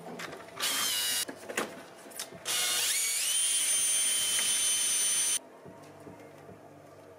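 Makita cordless drill running in two trigger pulls: a short one about half a second in, then a run of about three seconds that whines up in pitch, holds steady and cuts off suddenly.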